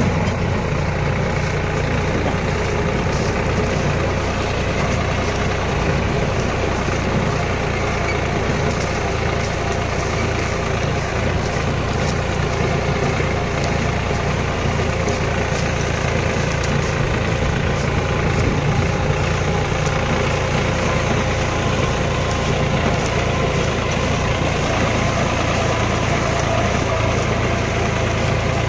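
Tractor engine running steadily while powering a Bull Agro baler, a constant low mechanical hum with no change in speed.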